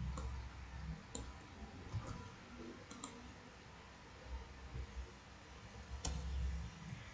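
Sparse, sharp clicks of a computer mouse and keyboard, about one a second, with a quick double click about three seconds in, a pause, then a single click about six seconds in.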